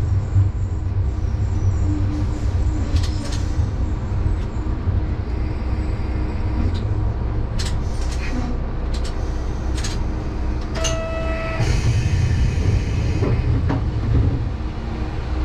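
Diesel railcar drawing to a halt at a station platform and then idling, a steady low engine rumble with scattered clicks from the cab. About eleven seconds in a short electronic tone sounds, followed by a brief hiss.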